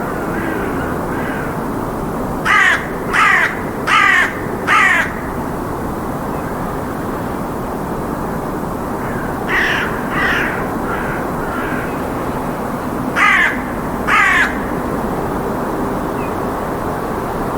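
Crows cawing in short series: four loud caws a few seconds in, a quieter run of calls around the middle, and two more loud caws later, over a steady low background rumble of city noise.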